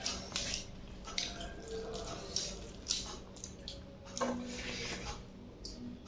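Close-up wet eating sounds: fingers squishing and mixing rice with chicken curry on a steel plate, and chewing and biting into chicken, as short irregular bursts.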